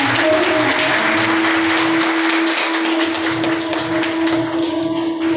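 Audience clapping, with one long steady musical note held over the applause.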